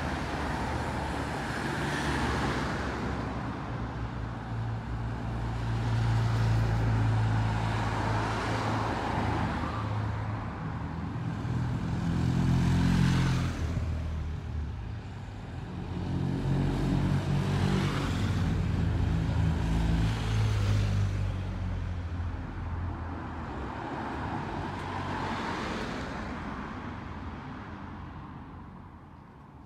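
A stream of motor vehicles, among them cars, a motorcycle and a van, driving past one after another. Each engine grows louder as it nears and fades away, the loudest passes coming in the middle, and the last one dies away near the end.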